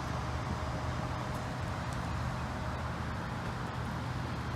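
A vehicle engine running steadily at idle: a constant low hum with no change in speed.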